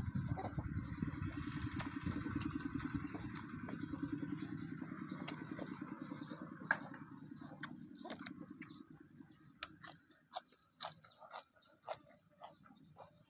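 A motor vehicle's engine running steadily, then fading away after about eight seconds, followed by a few scattered light clicks.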